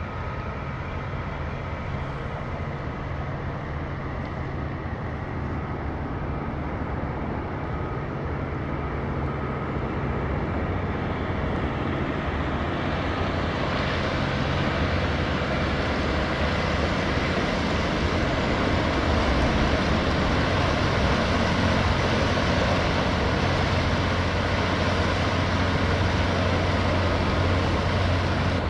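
Diesel engine of a 135 m inland motor cargo ship running at cruising power as it passes close by, a steady low hum that grows louder as the stern draws level. A rushing noise joins it about halfway through and keeps building.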